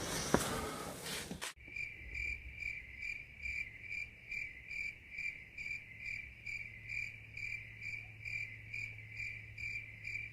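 A cricket chirps steadily, about two and a half chirps a second, over a low hum. It begins abruptly about one and a half seconds in, replacing faint room noise that has a single click.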